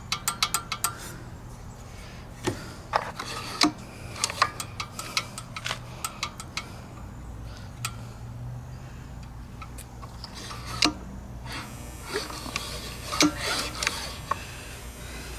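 Small metal parts of a Honda GCV190 engine's exposed valve train clicking and rubbing as a hand handles the rocker arms: a quick run of light clicks at the start, then scattered taps and clicks with a faint metallic ring.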